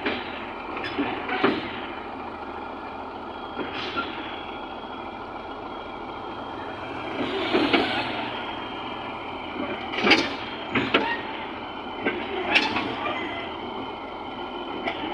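Heavy construction machinery running steadily, broken by several sharp clanks and short loud bursts of noise.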